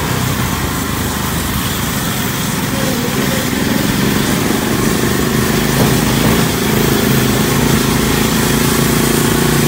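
Off-road buggy engine running under way, heard from the buggy's seat. Its note firms up a few seconds in and then holds steady.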